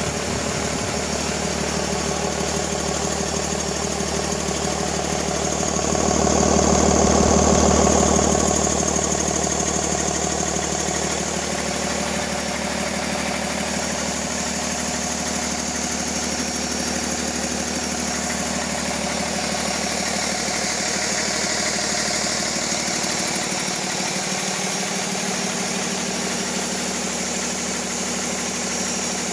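A 2009 Cummins ISB 6.7-litre inline-six turbo diesel running steadily on its test run, briefly louder for a couple of seconds about six seconds in.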